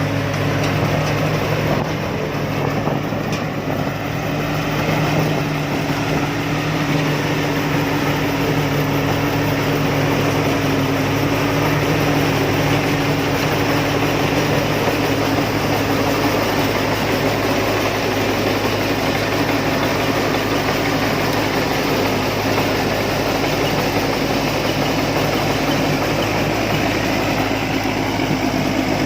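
Rice combine harvester's engine running steadily at an even speed.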